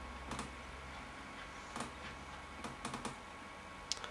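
Scattered light clicks from a laptop being operated, about six over four seconds with a sharper click near the end, over a faint steady low hum.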